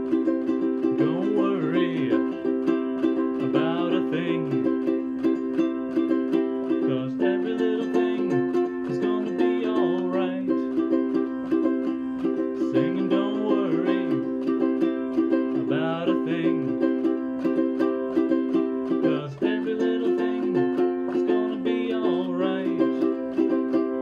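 Ukulele strummed with chords ringing steadily, and a man's low voice singing along in short, repeated phrases.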